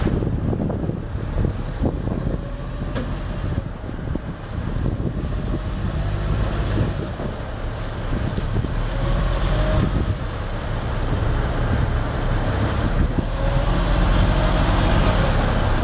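Cummins diesel engine of a 1988 Advance concrete mixer truck running steadily at a low, even speed.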